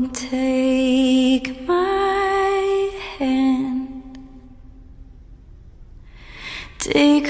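Slow, soft song: a single voice singing long held notes with vibrato, in phrases broken by breaths, with a lull of about two seconds before the next phrase begins near the end.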